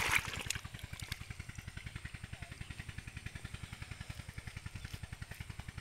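A small engine running steadily at idle, a fast, even low pulsing. A brief noisy burst comes right at the start.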